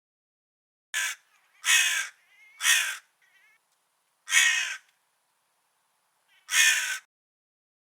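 A crow cawing five times in harsh, evenly loud calls at uneven gaps, with two faint short calls between the first three.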